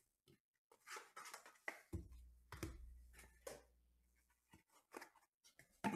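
Hands handling a trading-card box and its foam insert on a table: faint scrapes and light taps. A dull knock comes about two seconds in, followed by a low rumble.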